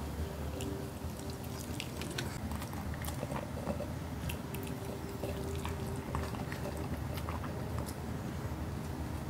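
A Pomeranian puppy chewing and biting at bits of food held out on chopsticks: quick, irregular clicks and smacks, over a steady low hum.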